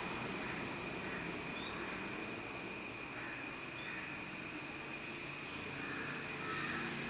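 Steady outdoor ambience: a continuous high insect drone over an even background hiss, with a few faint short chirps.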